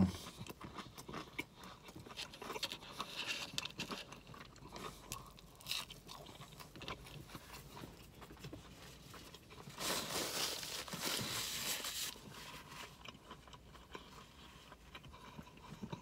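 Quiet close-up chewing and mouth sounds of someone eating breakfast food, with small wet clicks throughout and a louder two-second stretch of noise about ten seconds in.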